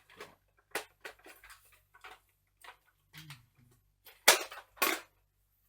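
Plastic toy foam-dart blaster being handled, with a string of light clicks and knocks and two loud sharp plastic clacks about four and a half seconds in.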